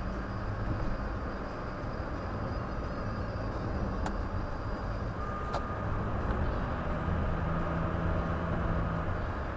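Steady road and engine rumble of a car driving, heard from inside the cabin, with two faint clicks near the middle and a faint thin whine from about halfway on.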